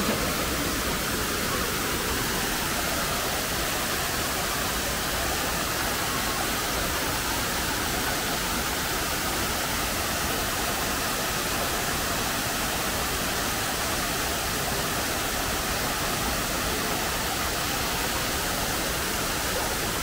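Shiraito Falls, water pouring in many thin streams over a wide rock face, making a steady, even rushing hiss.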